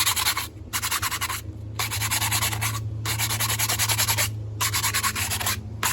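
Zoeller M53 sump pump housing being scuffed up by hand, with fast back-and-forth scraping strokes in several runs broken by short pauses. A steady low hum sits underneath.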